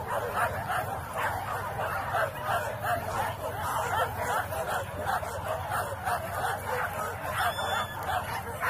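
A pack of boar-hunting dogs barking and yelping without a break, many voices overlapping several times a second.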